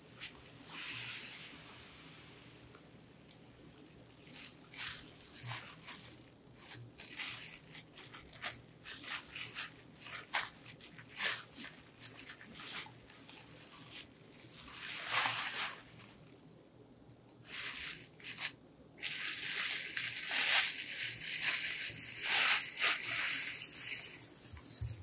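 Bubble wrap crinkling and rustling as it is handled and pulled off a bow riser: scattered short crackles, then a denser stretch of continuous rustling over the last few seconds.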